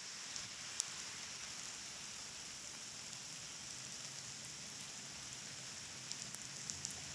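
Steady rain falling on a wet street, an even hiss with a few sharper ticks of single drops, the clearest just under a second in.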